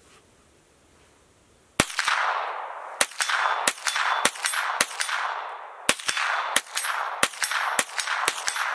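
Ruger 10/22 .22 rifle fired semi-automatically in a quick string of well over a dozen shots, starting about two seconds in, each crack trailing off in a ringing echo.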